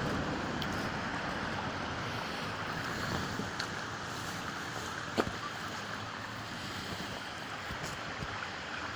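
Steady rushing of a small stream flowing over rocks, with a sharp click about five seconds in.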